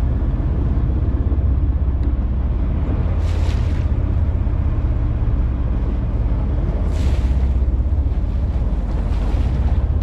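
Steady low hum of a boat's engine under wind on the microphone and the wash of the sea, with two short hisses about three and a half and seven seconds in.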